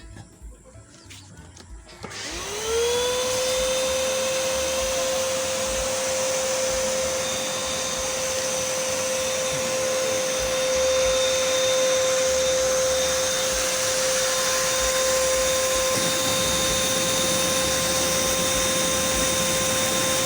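Electric compressor motor supplying the air blast to a coal-fired melting furnace, starting up about two seconds in: its whine rises quickly in pitch and settles into a steady high whine over a continuous rush of air.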